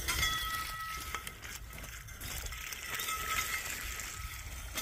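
Poly drop pipe and pump wire running over the wheels of a pipe roller into a well casing as the pump is lowered: the rollers turn with rubbing sounds and a thin whine twice, once in the first second and again about three seconds in.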